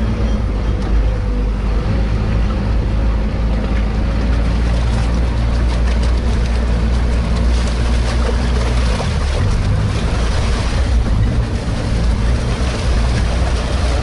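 Diesel engine of a Sherp amphibious all-terrain vehicle running steadily under load while crossing water. The engine note shifts about nine seconds in, and a hiss builds over it in the second half.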